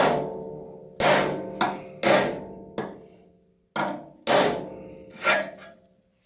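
Flat-faced hammer striking the steel bed-frame rail of a 1966 VW double cab, with a flat piece of steel held underneath as a dolly: about eight blows, a few of them lighter, each loud blow leaving a short metallic ring. The hammering is flattening a high spot left by the factory spot welds.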